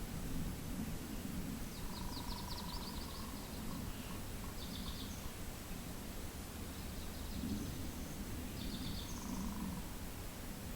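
Wind rumbling against the microphone, with a small bird singing several short, fast trills of high notes over it.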